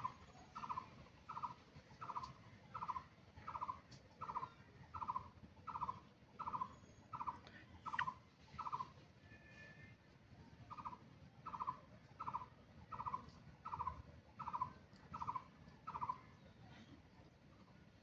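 A bird calling a single short note over and over, about three notes every two seconds. It breaks off for about two seconds midway, then resumes and stops a couple of seconds before the end.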